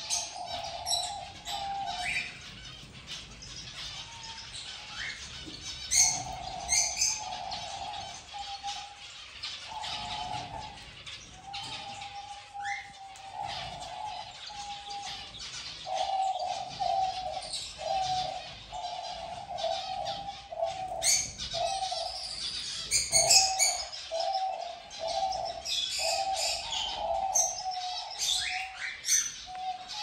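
A flock of aviary finches, zebra finches among them, chirping and calling constantly, over a low cooing of doves repeated again and again.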